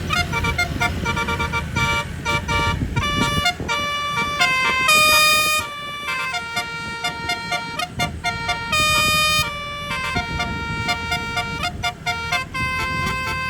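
Multi-trumpet bus telolet horn (18 trumpets, 18 notes) playing a melody of quick short notes, with longer held notes about five and nine seconds in, over a low engine rumble.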